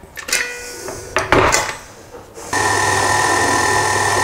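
KitchenAid Artisan tilt-head stand mixer: a few knocks and clatters as the head is lowered onto the bowl. About two and a half seconds in, the motor starts and runs steadily with a hum and a high whine, turning the flex-edge beater through cake batter with hazelnuts.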